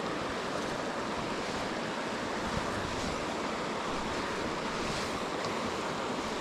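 Steady rushing of a shallow gravel-bed stream running over riffles, even and unbroken.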